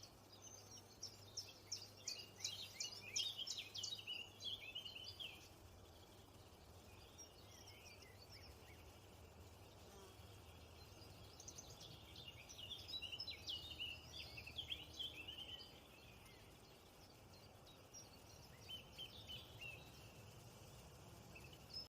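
Small birds chirping in quick, high twittering bouts, three spells of rapid chirps with quieter gaps between, over a faint steady low background hum.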